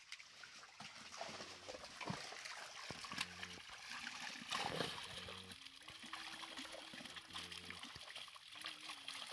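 Water splashing and trickling as live fish thrash in a drawn-in fishing net held at the water's edge, with the biggest splashes about halfway through.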